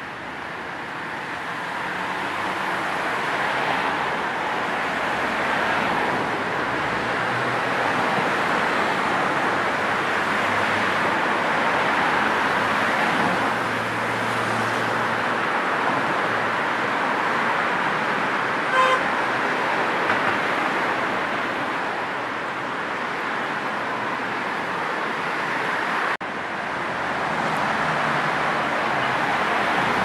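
Steady city road traffic: the noise of cars passing along the street, with one short car horn toot about two-thirds of the way through.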